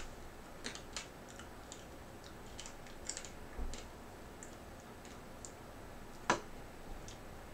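Faint scattered snaps and crackles of dry, uncooked ramen noodle snack (Ppushu Ppushu) being broken apart in its packet by hand, with one sharper snap about six seconds in.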